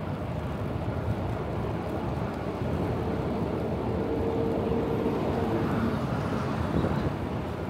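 Wind rumble on a chest-mounted camera's microphone and street traffic during a bicycle ride, with a steady hum lasting about three seconds in the middle.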